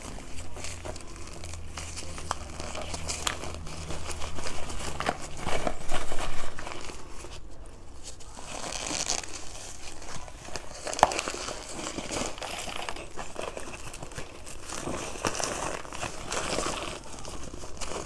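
A bag of cornstarch chunks being crinkled, pulled open and squeezed by hand, a steady crackly rustle that is loudest about five to six seconds in, with one sharp click near the middle.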